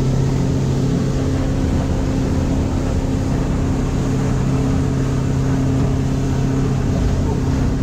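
Motorboat under way at speed: its engine running with a steady drone, over the constant rush of water spraying past the hull.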